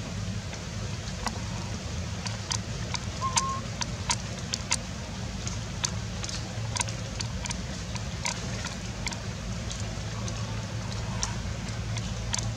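Outdoor forest ambience: a steady low hum with irregular sharp ticks and taps scattered throughout, and one short high note about three seconds in.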